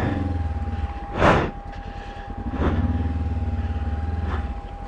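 Honda CB500X parallel-twin engine running at low revs on the move. The throttle eases off about a second and a half in and picks up again near the middle. A brief loud burst of noise comes a little over a second in, with softer ones later.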